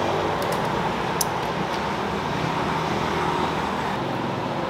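Steady street traffic noise with an engine running nearby, with a few light clinks about a second in.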